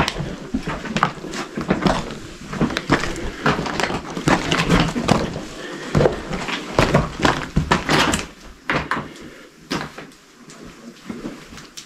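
Footsteps crunching and scraping over loose slate rubble, the broken stone slabs clinking and knocking underfoot in an irregular run that thins out about nine seconds in.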